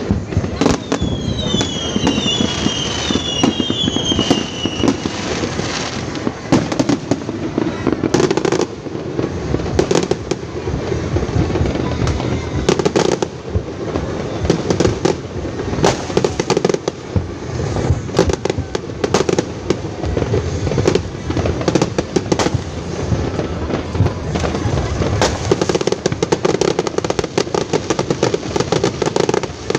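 A fireworks display with rapid, dense bangs and crackling. There are several falling whistles in the first few seconds.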